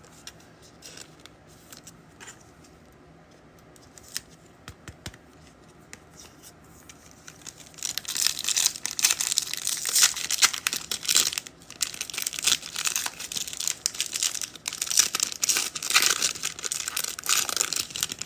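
Soft clicks of cards being handled, then from about eight seconds in, loud crinkling and tearing as a trading-card pack wrapper is ripped open.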